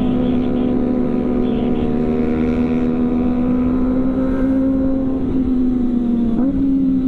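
Kawasaki ZX-25R's inline-four engine running through a CLD aftermarket exhaust, holding a steady high-revving note while the bike rides along, with a brief change in pitch about six and a half seconds in.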